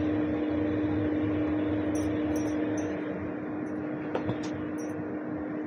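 Steady background hum with an even tone and a hiss, with a couple of faint clicks about four seconds in.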